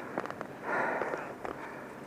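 A skier breathing hard, out of breath from the exertion, with one loud breath a little past halfway in the first second. A few short clicks come near the start.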